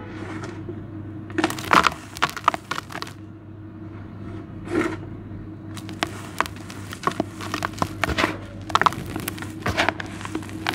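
Dry charcoal powder and sand with small white stones being scooped by hand and sifted back into a plastic tub, giving crunchy, gritty crackles that come in irregular clusters.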